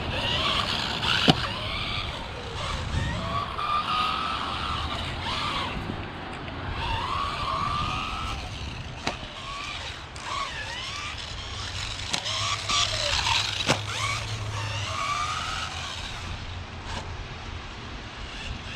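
Rlaarlo AMX12 1/12-scale electric RC buggy driving, its electric motor whining up and down in pitch with the throttle, with a few sharp knocks along the way.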